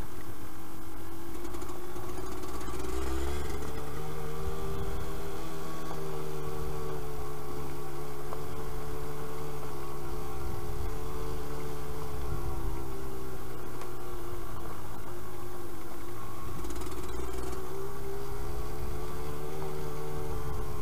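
Yamaha DT125 YPVS two-stroke single-cylinder engine running under way at a steady level. The revs climb a few seconds in, ease off in the middle and rise again near the end.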